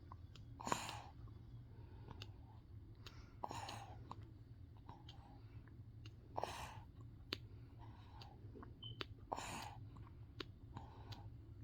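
A baby feeding on milk: small wet clicking sucking sounds, with a soft breathy huff about every three seconds, four in all.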